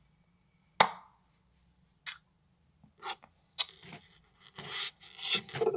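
A sharp tap about a second in, then a run of short, irregular rustling and brushing noises from hands moving close to the phone's microphone.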